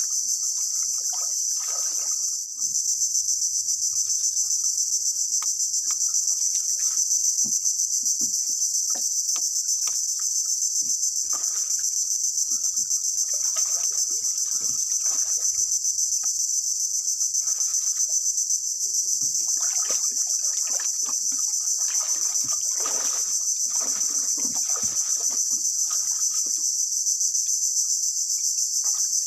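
Loud, steady, high-pitched chorus of insects in the swamp, pulsing rapidly. Under it, scattered splashes, sloshing and snapping from wading through shallow muddy creek water and pushing among fallen branches.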